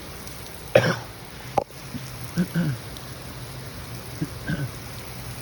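Heavy thunderstorm rain falling steadily, with a short loud sound about a second in and a sharp click just after.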